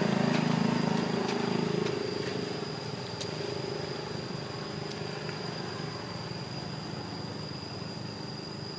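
A motor engine running steadily, louder for the first two seconds and then dropping to a fainter hum. A thin, steady high-pitched whine runs throughout, with a few faint clicks.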